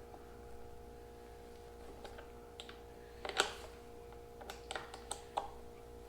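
Scattered sharp clicks and light knocks from hands handling hardware, loudest about three and a half seconds in, then a quick run of clicks near the end, over a steady faint hum.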